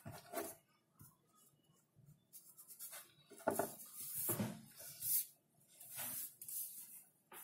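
Pencil and hand rubbing and brushing across a sheet of drawing paper in several short strokes, the loudest about halfway through.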